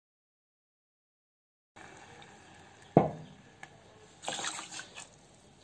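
Silence for the first couple of seconds, then water poured into sugar in a steel pan: a single knock about three seconds in, then a brief splashing pour near the end.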